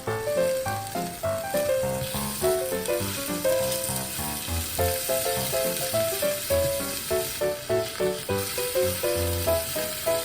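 Food sizzling as it fries in a pan, under background music made of quick, short notes.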